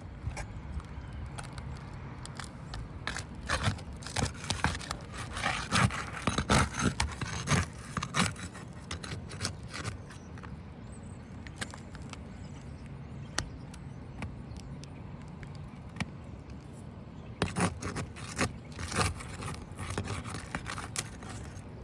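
Metal tool scraping and clicking against roof shingles while roofing nails are worked loose and pulled. The sound comes in two spells of activity with a quieter stretch between them.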